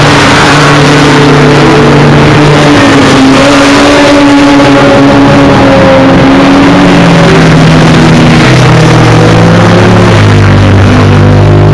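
Sports motorcycle engines running hard on a race track. They are loud, and the pitch holds, rises and falls as the bikes accelerate and change gear.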